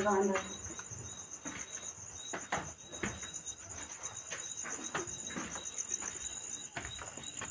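Crickets chirping in a steady, fast high-pitched trill, with occasional soft clicks and knocks over it.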